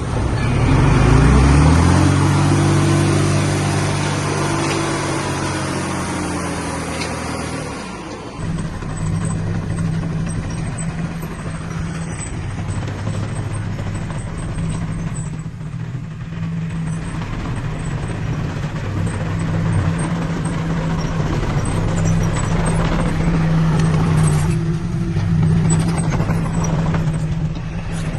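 Diesel engines of heavy earthmoving machinery running. The engine revs up in the first second or two and holds high, then about eight seconds in the sound changes abruptly to a different, steady engine note that runs on.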